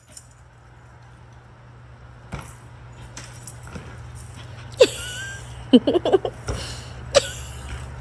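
A dog giving short, sharp barks: one, then a quick cluster of four or five, then one more, over a steady low hum.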